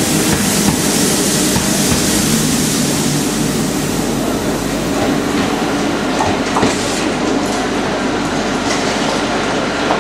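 SNCF BB 22200-series electric locomotive running past at low speed, a steady rushing noise with a brighter hiss in the first few seconds, and its wheels clicking over rail joints and points a few times about two-thirds of the way in.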